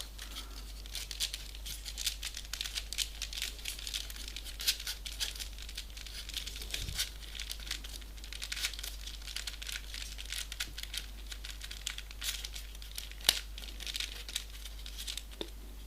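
Folded paper pieces rustling and crinkling as they are pushed into a 3D origami model, a run of fine crackles with a sharper click about 13 seconds in.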